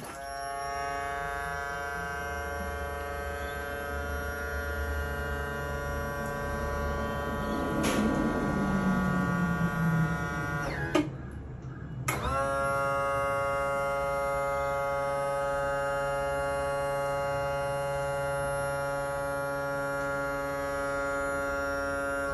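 The outboard's electric power tilt-and-trim motor whining steadily as it raises the leg. It grows louder for a couple of seconds, then stops with a click about eleven seconds in. After a short pause it starts again and whines steadily as it lowers the leg.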